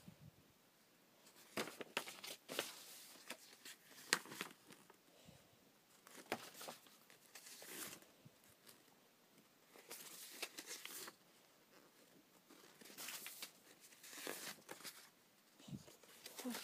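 Intermittent rustling and crinkling of paper collages handled close to the microphone, with scattered light clicks and taps between quiet gaps.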